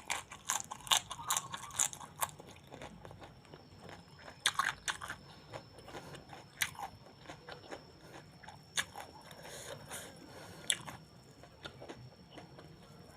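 A person chewing a mouthful of food with irregular sharp crunches, busiest in the first two seconds and again around four and a half seconds in.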